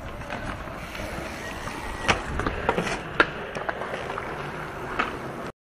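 Skatepark clatter: a handful of sharp clacks and knocks from skateboards and BMX bikes on concrete over a steady low rumble, cutting off abruptly near the end.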